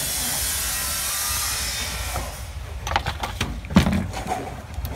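A steady hiss for about two seconds, then a short run of clicks and knocks, the loudest near four seconds in.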